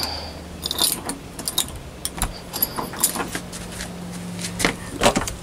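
Scattered short clicks and light jingling rattles from things being carried and handled, over a steady low hum.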